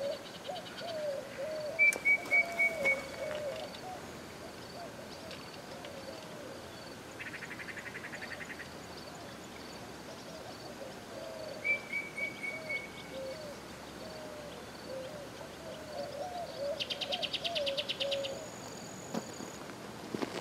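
Birds and insects calling in the open: a quick run of about five short, clear high notes comes twice, a lower wavering call runs on under it, and two buzzy pulsing trills come in, the second higher and longer.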